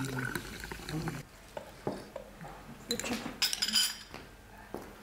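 Teaspoons and glassware clinking against tea glasses, saucers and small glass dishes on a table: scattered light clinks, with a quick run of them about three seconds in.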